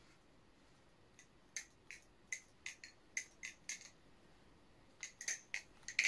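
Atropos Cassowary 2 butterfly knife being flipped, its handles and blade clicking together: about a dozen sharp clicks in quick clusters starting about a second and a half in, the last ones loudest as the knife closes.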